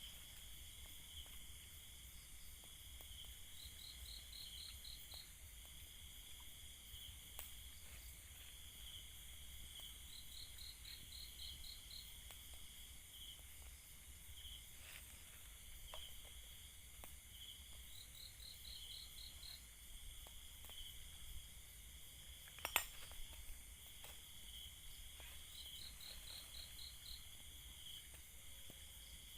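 A faint chorus of crickets and other insects chirping steadily, with one insect's short pulsed trill repeating about every seven seconds. A single sharp click or knock sounds once, about 23 seconds in.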